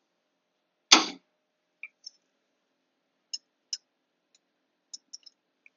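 Small metal parts clicking as loose valve keepers are picked out of the cylinder head with a magnet: one sharp knock about a second in, then a scattering of faint light clicks.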